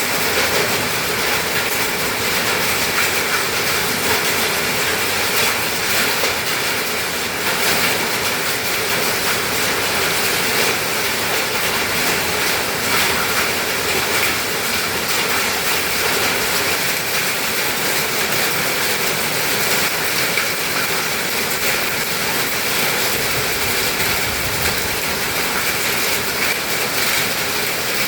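Heavy rain and hail falling hard in a windstorm: a dense, steady rush of countless small impacts that holds at the same level throughout.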